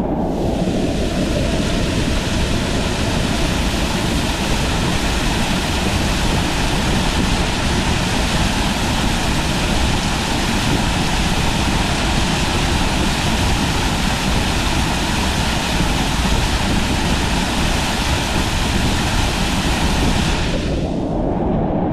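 Waterfall: a loud, steady rush of falling water, going duller for a moment near the end.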